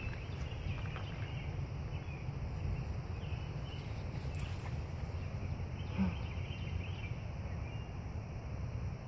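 Outdoor background with no voices: a steady low rumble, faint high chirps here and there, and one brief low knock about six seconds in.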